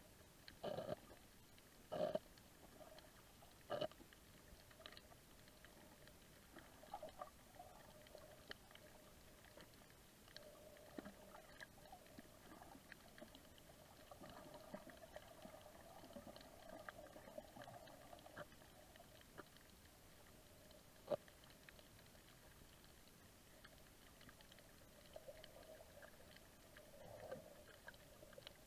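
Faint underwater ambience: a low steady murmur with scattered crackle and a few sharp clicks, three close together in the first four seconds and a single one about twenty seconds later.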